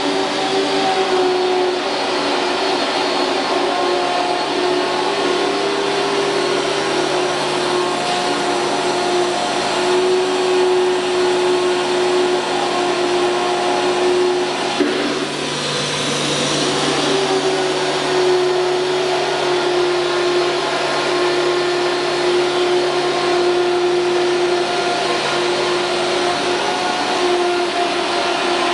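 Disc-type ATC CNC router machining center running: a steady motor hum and whine with a hiss over it, and a brief click about halfway through.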